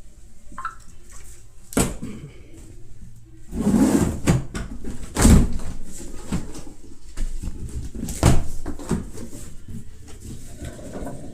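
Air-conditioner packaging being handled during unboxing: irregular knocks and rustling, with loud thumps about two, five and eight seconds in.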